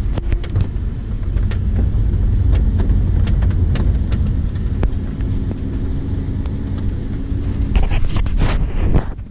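Lamborghini Huracán's V10 running under way, heard inside the cabin, with heavy low road and wind noise. Scattered sharp clicks and knocks, with a cluster of loud ones about eight seconds in.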